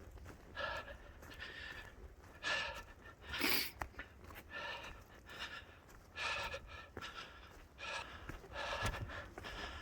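A man breathing hard with exertion, a quick, audible breath in or out about once a second. There is a brief louder rustle about three and a half seconds in.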